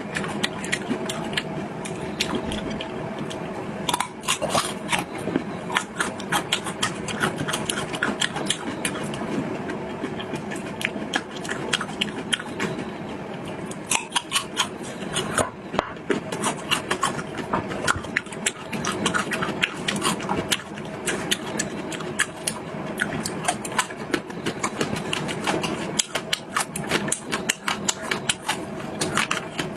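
Close-miked chewing and eating sounds: a rapid, continuous run of wet smacks and crunchy clicks, over a steady low hum.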